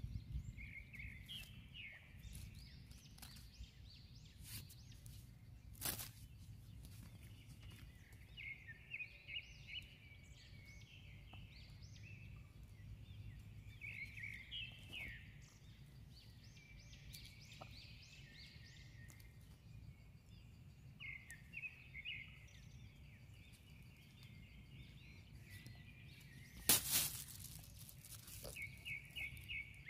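Birds chirping in short repeated phrases over a faint low rumble of wind, with scattered small clicks of hands working at a dead log. Near the end, a brief loud crackle of a plastic bag being handled.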